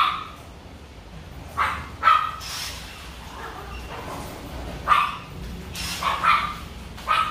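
A dog barking repeatedly, about half a dozen short barks at uneven intervals.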